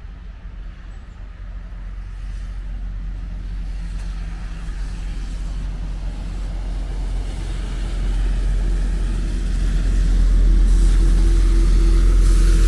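A motor vehicle on the wet road approaching and growing steadily louder, with tyre hiss on the wet asphalt over a low engine rumble and a steady engine hum coming in about two thirds of the way through.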